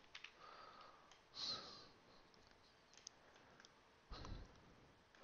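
Near silence: faint room tone with a soft breath about a second and a half in, a few faint computer mouse clicks, and a low soft bump on the microphone about four seconds in.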